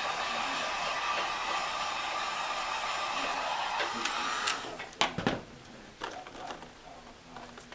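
Wagner heat gun blowing hot air with a steady rushing hiss and a faint whine, switched off about four and a half seconds in. A few clicks and knocks follow as the shrink-wrapped plastic case is handled.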